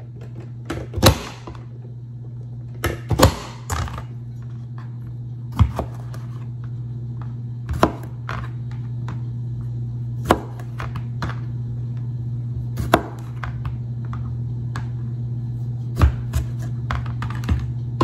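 Manual push-down vegetable chopper pressed down again and again, forcing halved tomatoes through its blade grid: a sharp plastic clack every two to three seconds, over a steady low hum.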